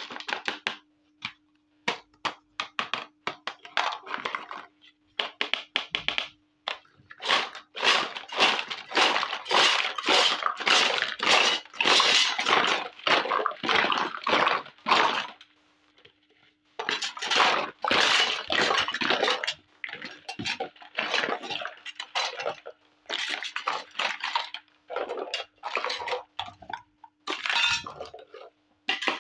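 Small plastic toy kitchen pieces (pots, cups, teapot, toy stove) clattering and rattling against each other and a plastic basket as they are handled and tipped out. The clatter comes in dense runs of clicks with short pauses between.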